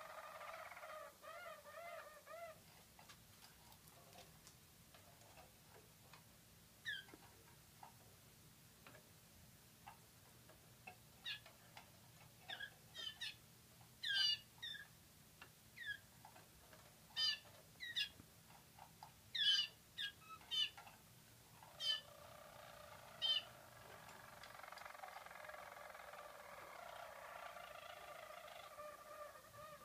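Harzer roller canaries singing: a low, rolling song at the start and again from about three quarters of the way through, and between them a scatter of short, sharp, high falling notes.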